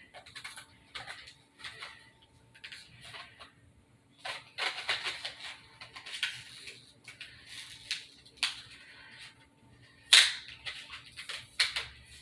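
Handling noises from opening an LED flashlight and loading it with AAA batteries: irregular clicks, taps and rustles, with one loud sharp click about ten seconds in.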